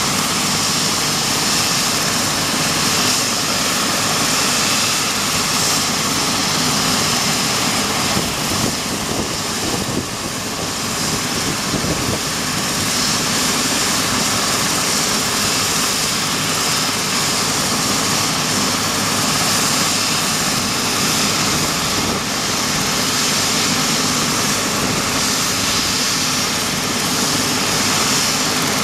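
MBB/Kawasaki BK 117 helicopter's twin turbine engines running steadily on the ground with the main rotor turning: a constant high turbine whine over the rotor's chop, without change in level.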